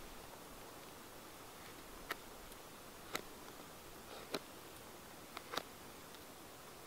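A knife blade cutting the inflexible parts off a piece of horse's hoof fungus (Fomes fomentarius): five crisp snicks, roughly a second apart, the last two close together.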